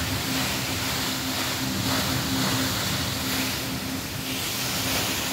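A large curtain-style waterfall feature pouring down a wall into a pool: a steady rush of falling, splashing water, with a low hum that comes and goes underneath.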